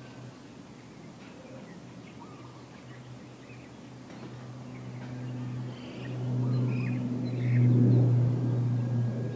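Airbus A400M's four TP400 turboprops passing: a low, steady propeller drone. It is faint at first, grows louder from about halfway through and is loudest near the end. Small birds chirp faintly in the background.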